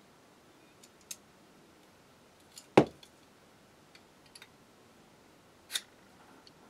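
Steel workpiece and digital calipers being handled on a workbench during marking out: scattered light metal clicks, one louder knock about three seconds in as the steel block is set down, and a sharp click near the end.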